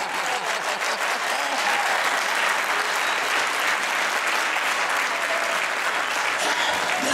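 A crowd applauding steadily: dense, continuous clapping with no clear music under it.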